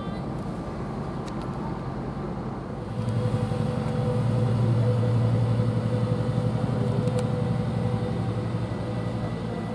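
Diesel locomotive leading a bi-level commuter train, its engine running with a steady low drone and a held mid-pitched tone as it approaches. The sound comes in abruptly about three seconds in, is loudest a couple of seconds later, and eases slightly after that.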